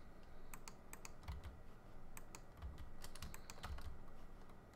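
Faint, irregular clicking of a computer keyboard and mouse being worked.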